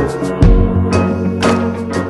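Background music with heavy drum hits over sustained low notes.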